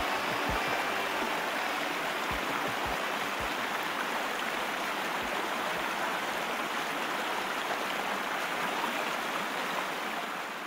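Rushing whitewater of the Niagara River rapids: a steady wash of churning water that starts fading out near the end.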